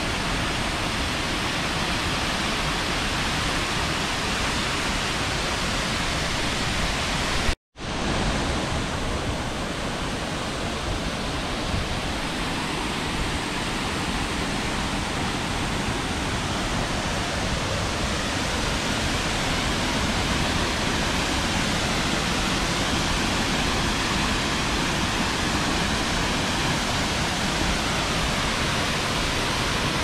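Wachirathan Waterfall: the steady rush of a tall waterfall pouring onto rocks. The sound drops out for an instant about seven seconds in.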